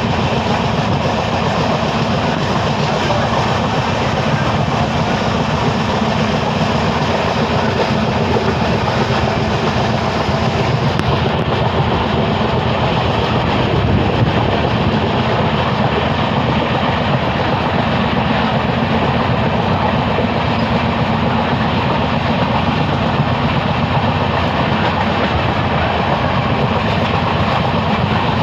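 Mumbai suburban local train running on the rails: a loud, steady rush of running noise.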